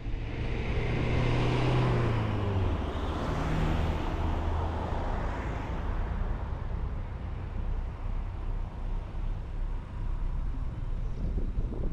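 Steady road and wind noise from a moving car, with another vehicle's engine swelling and falling slightly in pitch as it passes during the first few seconds.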